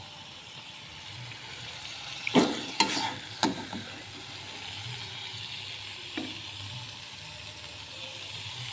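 Red chili sambal sizzling in a wok on the stove, with a spatula scraping and knocking as it is scooped out; a few sharp knocks come about two and a half to three and a half seconds in, and another near six seconds.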